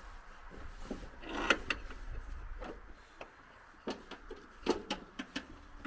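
Hand-work handling noises: a few scattered light knocks and clicks with some rubbing, most of them in the second half.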